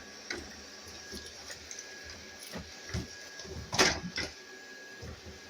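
Shark Matrix Plus robot vacuum running, a steady motor whir with a faint whine, scattered clicks and knocks, and one sharp knock just under four seconds in.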